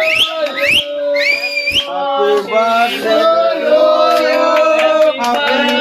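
Several male voices singing together, with a few sharp rising whistles in the first two seconds.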